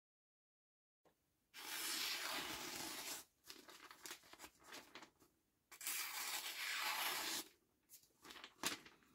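Freshly sharpened kitchen knife slicing through a sheet of printed flyer paper in a paper-cut sharpness test: two long cuts of about a second and a half each, with paper rustling between them and a short sharp tick near the end.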